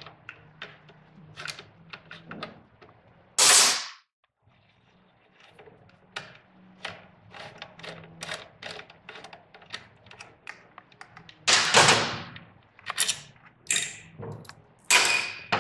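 Hand ratcheting driver clicking in quick, uneven runs as the motorcycle's exhaust hanger bolt is loosened, with a few louder knocks of metal parts being handled.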